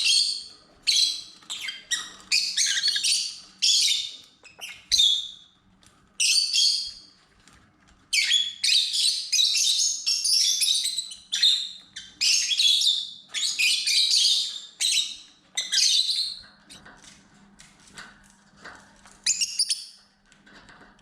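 Lovebirds making shrill chirps and squawks in a rapid, near-continuous string that thins out after about sixteen seconds, with one last call near the end.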